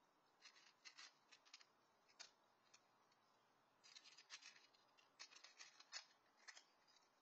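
A cat crunching dry kibble from a metal bowl. The faint, crisp crunches come in quick clusters with short pauses between them.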